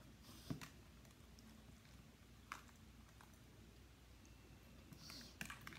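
Near silence broken by a few brief clicks and taps of a plastic fork against a plastic cup, the sharpest about half a second in and a small cluster near the end.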